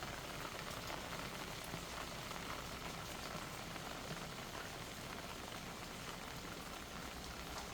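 Light drizzle, a steady patter of fine rain falling on the pots and surfaces around.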